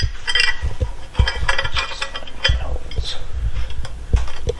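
Metal parts and tools clinking and knocking irregularly, with low thumps in between.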